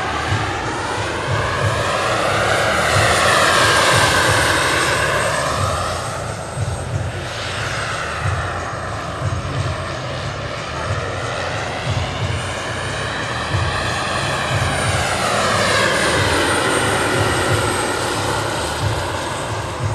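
Turbine-powered scale model Mil Mi-24 helicopter flying past twice. A steady high turbine whine and pulsing rotor chop swell and fade with each pass.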